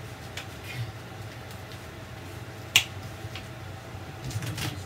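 Hands handling a cut piece of self-adhesive foam wall panel, making a few short clicks, with one sharp snap-like click about halfway through, over a steady low hum.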